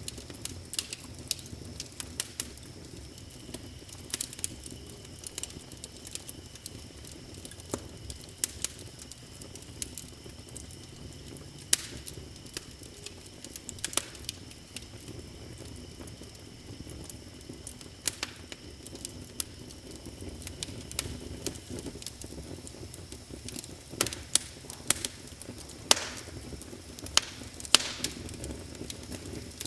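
Wood fire crackling in a fireplace: irregular sharp pops and snaps, some loud, over a low steady rush of burning flame. A faint steady high-pitched tone runs underneath.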